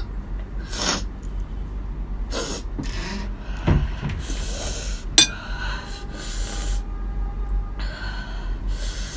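A person breathing hard in repeated sharp gasps and sniffs, reacting to the burn of very spicy noodles, with a sharp click about five seconds in.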